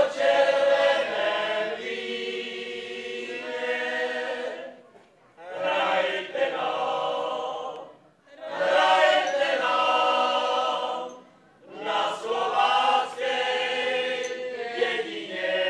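Mixed group of men and women singing a Moravian folk song together, in phrases broken by short pauses about five, eight and twelve seconds in.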